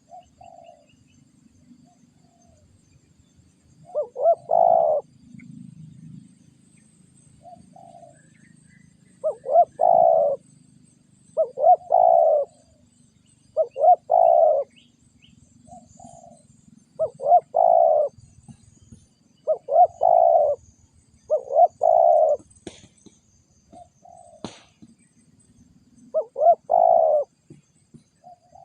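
Spotted dove cooing: its multi-note call repeated in phrases about every two seconds. A single sharp click about three-quarters of the way through.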